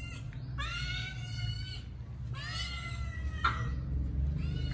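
A kitten meowing over and over: high-pitched calls about a second long each, three in a row with a fourth starting near the end.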